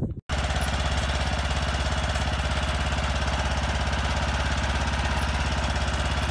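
Riding lawn mower's small engine running steadily with an even, rapid pulse, coming in abruptly just after the start.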